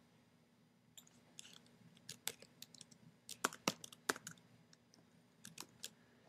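Computer keyboard typing: a faint, irregular run of key clicks, most of them in the middle of the stretch.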